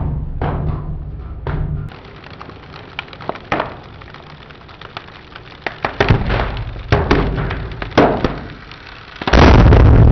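Liquid-nitrogen-frozen paper bursting apart under a hydraulic press: a string of sharp cracks and thuds, then a loud sudden blast about nine seconds in that keeps going.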